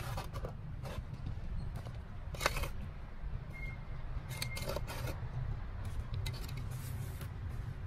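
Hands and a garden trowel working loose soil into a plastic plant pot: a few short scrapes and rustles of soil being scooped and pressed down around a seedling, over a steady low rumble.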